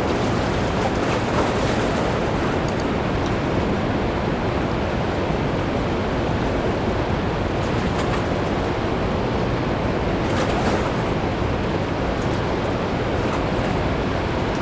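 Steady rushing noise of fast-flowing river water mixed with wind on the microphone.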